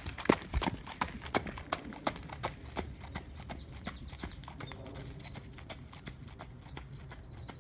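Hooves of a bay gelding trotting on a hard, muddy track, about three strikes a second, growing fainter as the horse moves away until they die out about halfway through.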